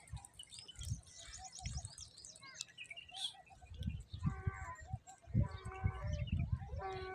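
Goats bleating, about three calls from about four seconds in, one of them long, with small birds chirping in the first half.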